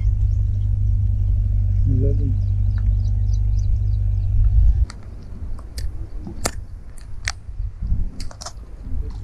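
Wind buffeting the camera's microphone as a heavy low rumble, cutting off abruptly about five seconds in, after which a scatter of sharp clicks and taps is heard.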